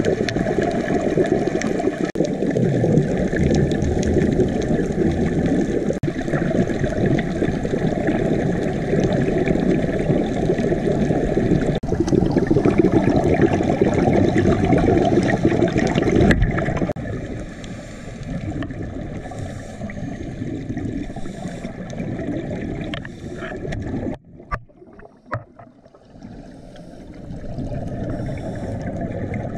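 Muffled underwater noise heard through a dive camera's housing, with scuba divers' exhaled bubbles gurgling. It is loud for about the first half, then quieter and patchier, dropping out briefly about three quarters of the way through.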